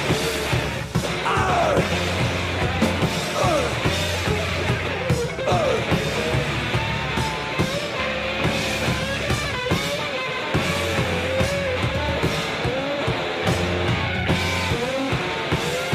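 Punk-industrial rock band playing an instrumental stretch without singing: a wavering, bending lead line over a low part repeating in blocks.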